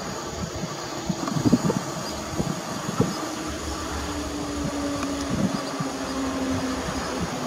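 EP09 electric locomotive running past with its wheels clattering over the rail joints for the first few seconds. Then a steady hum with a held tone as a train approaches from a distance.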